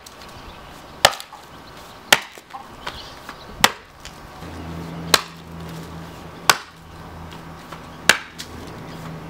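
Small forest axe with a 25-inch handle chopping into a black walnut stump: six sharp blows, about one every second and a half.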